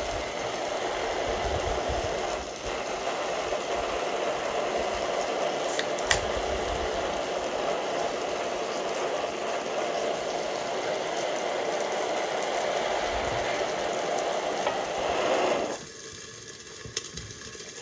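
Steady rushing noise that drops away suddenly near the end.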